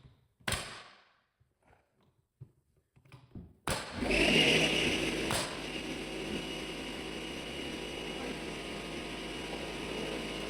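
A single knock, then a few seconds later a motorised machine starts abruptly and runs steadily with a hiss and a high whine.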